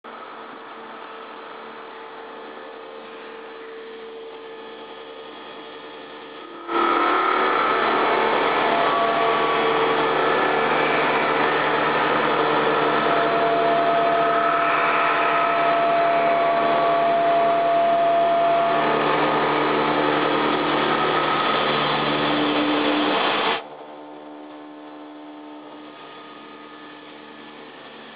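Heavy CNC milling machine cutting a steel workpiece: a steady mechanical noise with a few held whining tones. It becomes much louder suddenly about seven seconds in, and drops back just as suddenly a few seconds before the end.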